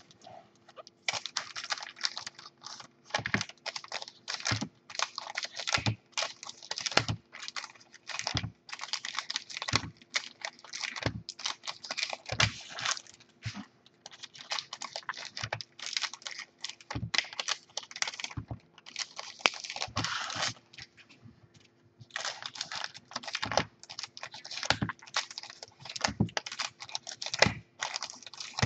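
Trading cards being sorted by hand: quick flicking and shuffling of cards, with a tap every second or so as a card or stack is set down on a wooden table. There is a short pause about three-quarters of the way through.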